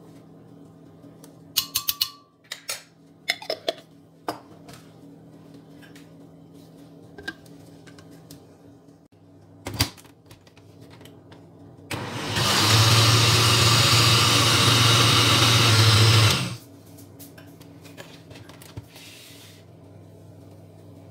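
A few sharp, ringing clinks of a metal spoon against the glass blender jug, then a Kenwood countertop blender runs steadily for about four seconds, mixing a liquid pudding batter of eggs, condensed milk and milk, and cuts off suddenly.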